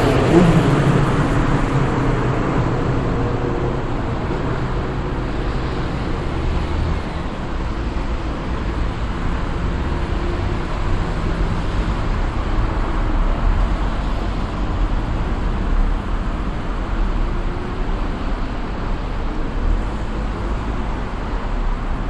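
Steady rumbling background noise with no distinct events. A pitched drone fades out in the first second.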